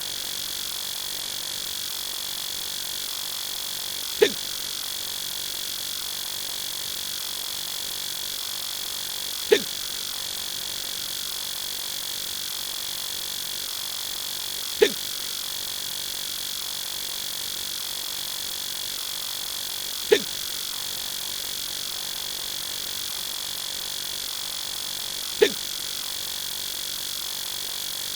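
An adult male hiccup sound effect, heard five times about five seconds apart over a steady high hiss.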